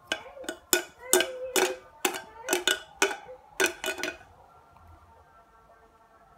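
Quick sharp knocks on a large hard shell, the giant tun shell Tonna galea, struck by hand about three times a second, each with a short ring; the knocking stops after about four seconds.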